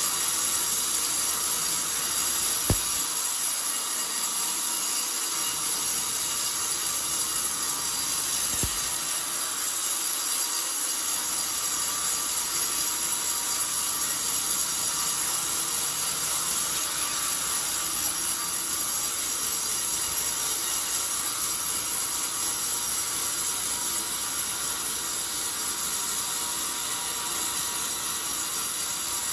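Band sawmill blade cutting lengthwise through old coconut-palm wood, a steady high-pitched sawing noise. Two short clicks sound about three and nine seconds in.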